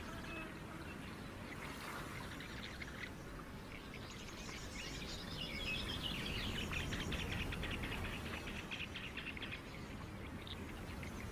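Faint birds chirping over a low outdoor background hiss, the chirping busiest in the middle.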